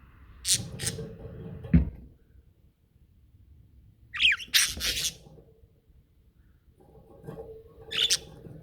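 Pet budgerigars giving short, sharp squawks and chirps in separate bursts with pauses between: two calls near the start, a quick cluster of gliding chirps about four seconds in, and two more calls near the end. A single knock sounds just under two seconds in.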